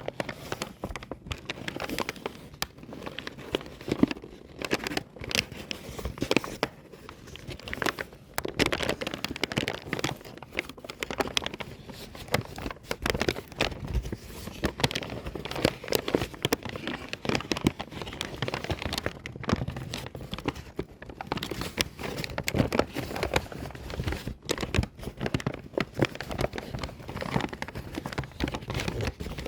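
Paper bag being crumpled by hand, a continuous run of irregular crinkles and crackles with sharper loud snaps scattered through it.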